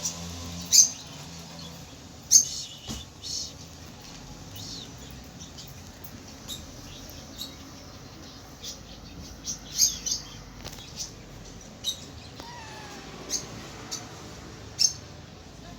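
Small pet birds chirping: short, sharp, high chirps at irregular intervals, about a dozen, over a low steady background.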